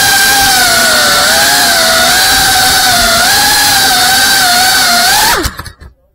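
FPV quadcopter motors and propellers whining loudly, heard through the onboard action camera's microphone, the pitch wavering with the throttle. About five and a half seconds in, the whine drops sharply in pitch and stops as the quad lands and the motors spin down.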